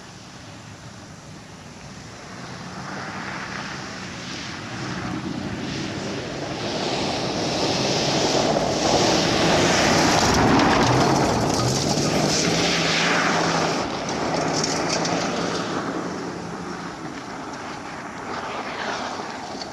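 A car's engine running hard as the car drives past on a dirt road, with the hiss of its tyres on the loose surface. It grows louder as it approaches, is loudest about halfway through, then fades as it drives away; the engine note steps up in pitch just after the loudest point.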